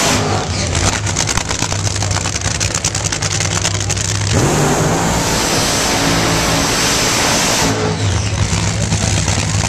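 Drag racing cars doing burnouts: the engines run at high revs with a rapid crackling exhaust, then the note changes and rises about four seconds in and settles into a steady low drone near the end.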